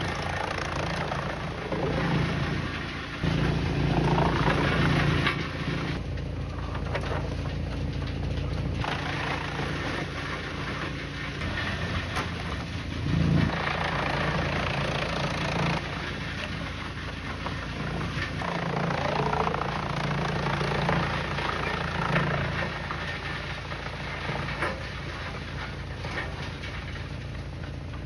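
Heavy machinery engine running steadily, its note swelling and easing several times as the load changes.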